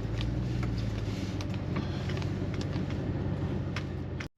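Truck driving slowly over a rough, snow-covered, icy road, heard from inside the cab: a steady low engine and road drone with scattered clicks and knocks, cutting off suddenly near the end.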